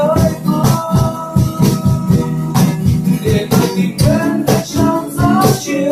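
Two acoustic guitars strummed while a young man sings in Vietnamese, over a steady rhythmic beat.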